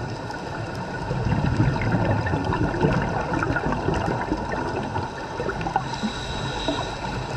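Water bubbling and gurgling as heard underwater on a scuba dive, louder from about a second in.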